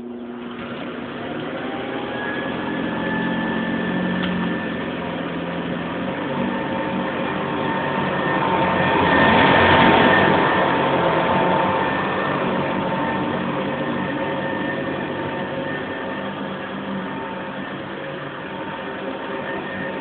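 Hoover Convertible model 707 upright vacuum cleaner switched on, its motor whine rising as it spins up over the first couple of seconds, then running steadily. It grows louder around the middle and eases off again toward the end.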